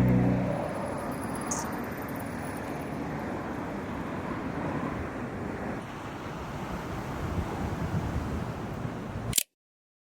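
Steady rushing surf at a sandy beach, an even wash of wave noise with no distinct breaks. It ends in a sharp click and a cut to dead silence shortly before the end.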